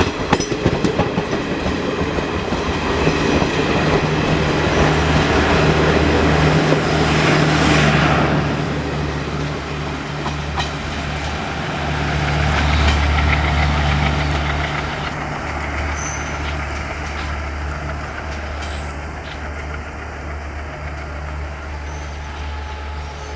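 Departing passenger express rolling through the station, its wheels clattering over rail joints in the first seconds, then a steady low drone and rumble that swells twice and slowly fades as the train moves away.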